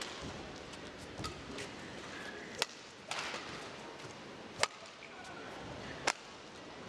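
Badminton rackets striking a shuttlecock in a rally: three sharp smacks, roughly one and a half to two seconds apart, with a few fainter ticks between and a low steady hall hush underneath.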